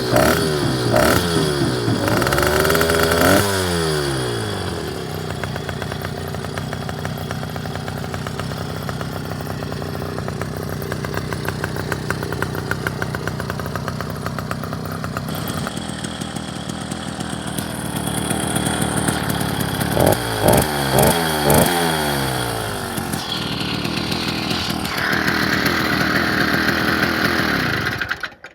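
66/80cc two-stroke motorized-bicycle kit engine running: a few revs at the start, a long steady idle, a quick series of throttle blips about two-thirds of the way through, then held at a higher speed until the sound cuts off suddenly near the end.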